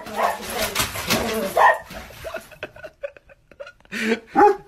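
Large dog barking at a door's letter slot, with a noisy scuffle through the first couple of seconds, scattered clicks after, and two last short barks near the end.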